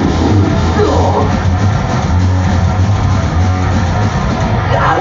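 Loud, dense heavy rock or metal music with a heavy, steady bass and no pauses.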